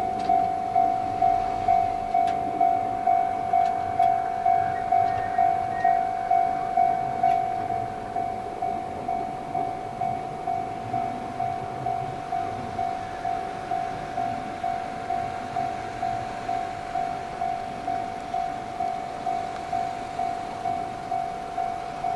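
Japanese railway level-crossing alarm ringing its repeated electronic bell tone, about two strokes a second. About seven seconds in it drops to a lower volume and keeps ringing.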